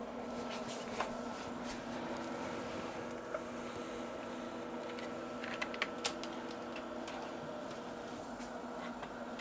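Steady hum of bench electronics with a few light clicks scattered through, like buttons being pressed or small parts handled.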